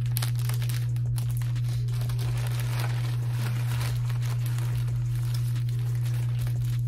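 Plastic packaging crinkling and rustling continuously as it is handled and an item is pulled out of it.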